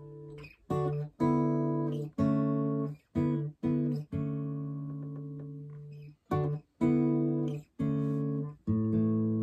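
Gibson J-45 acoustic guitar playing strummed chords in a stop-start rhythm, each chord stopped short before the next. One chord in the middle rings for about two seconds.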